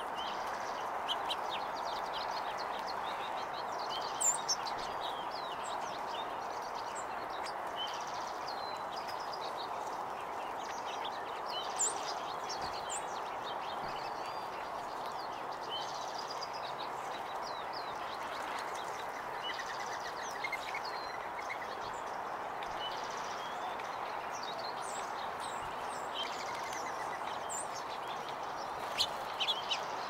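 Small songbirds, sparrows among them, giving many short, high chirps and call notes scattered throughout, over a steady background hiss. A few sharp taps stand out, about four seconds in, around the middle, and near the end.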